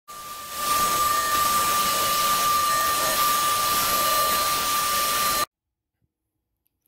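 CNC router spindle running with a steady high whine while its bit carves a cherry-wood chess piece on the final back-side pass; the sound cuts off suddenly after about five seconds.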